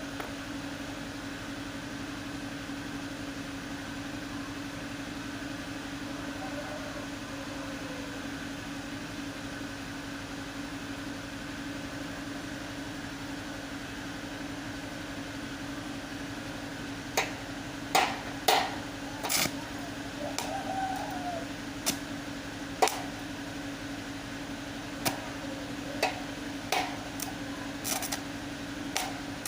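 A steady machine hum, like a cooling fan, runs throughout. About halfway through, a dozen or so sharp, irregular knocks start and are the loudest thing heard.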